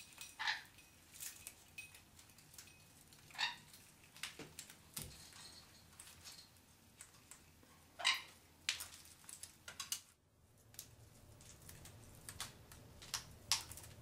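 Parrots giving short, sharp squawks and chirps, one every few seconds, the loudest about eight seconds in. A low hum comes in after a brief dropout near ten seconds.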